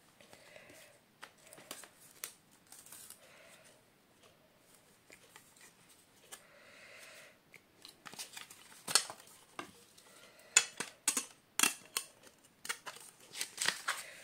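A wooden picture frame being opened and handled: a run of sharp clicks and taps from its metal backing clips and hard backing board, sparse at first and much denser in the second half, with a few soft rustles of card.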